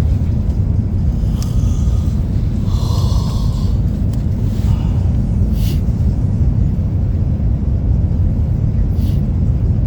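Steady low rumble of a vehicle's interior in motion, with a few faint short hissy sounds over it.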